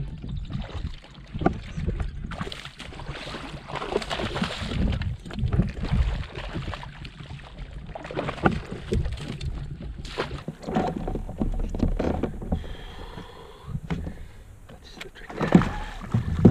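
Water splashing and sloshing around a plastic Hobie Outback fishing kayak, with irregular knocks and clatter of gear on the hull, as a bass is fought and brought to the net. A louder cluster of knocks comes near the end.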